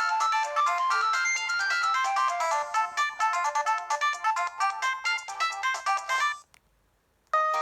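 Preloaded ringtone on a ZTE S2X mobile phone playing a quick melody of short notes, which stops about six seconds in; after a second's pause another ringtone starts with longer notes near the end.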